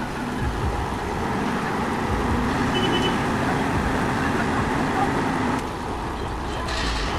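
Heavy vehicle engine running steadily, with a continuous noisy rumble.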